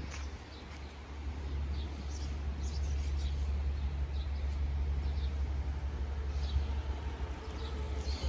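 Outdoor ambience: a steady low rumble, like wind on the microphone, with scattered short bird chirps.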